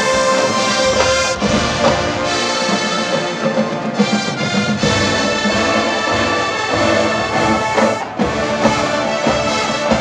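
Marching band playing a rock arrangement at full volume, with the brass section carrying sustained chords over drumline strikes.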